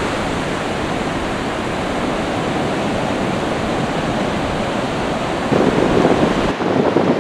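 Surf breaking on a sandy beach: a steady rushing noise of waves with no distinct tones. About five and a half seconds in it gets louder, and a second later the sound changes abruptly as the shot changes.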